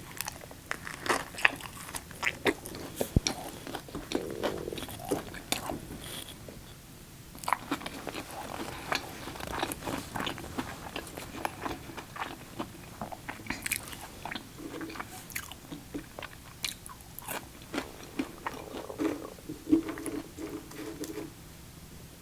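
A person chewing and biting into food close to the microphone: crunchy bites and wet mouth sounds in quick succession, with a short pause about two-thirds of the way through the first half.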